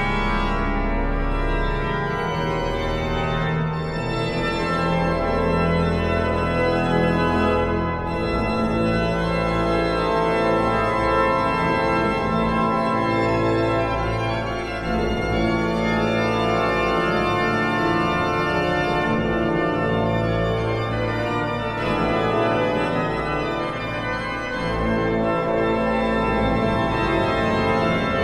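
Hinsz pipe organ playing full, many-voiced held chords with deep pedal bass notes underneath, at a steady loudness.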